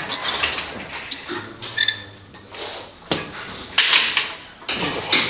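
Metal clinks and knocks from a cable lat pulldown bar and its cable being gripped and set, a few of them ringing briefly, with short noisy rushes between them.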